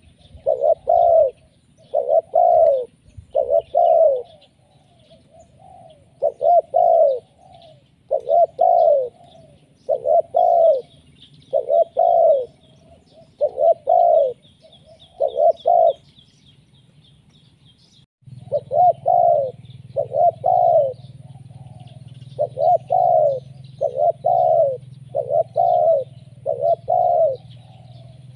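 Spotted dove (tekukur) cooing over and over, its calls coming in quick groups of two or three coos about every two seconds. This is the persistent, vigorous calling used as a lure for wild doves. The calling breaks off briefly about two-thirds of the way through, then resumes over a low hum.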